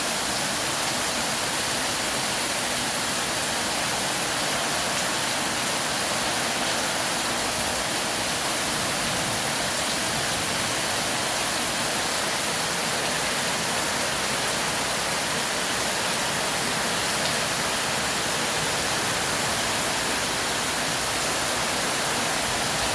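Heavy rain pouring steadily, a dense even hiss with no letup.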